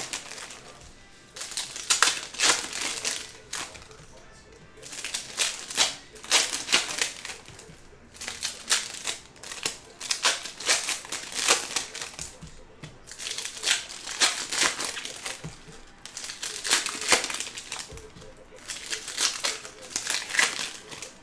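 Foil wrappers of Topps Chrome Update baseball card packs crinkling as they are torn open and emptied by hand, one pack after another, in bursts about every two to three seconds.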